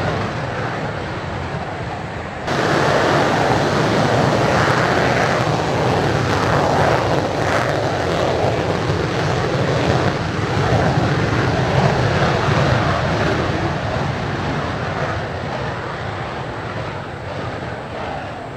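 Twin J79 turbojets of F-4EJ Kai Phantom II fighters roaring at take-off thrust as they roll down the runway and lift off. The roar jumps louder about two and a half seconds in and slowly fades toward the end.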